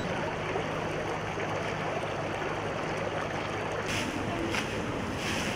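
Steady rush of floodwater flowing across a flooded street. About four seconds in, the sound changes and brief swishes come roughly every half second.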